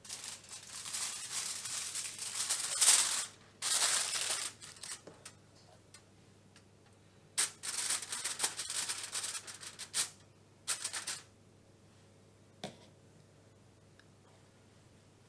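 Aluminium foil crinkling and crackling in two long runs of bursts as a sheet is pressed over a cake tin, crimped around its rim and pierced in the middle with a knife, followed by a single short tap.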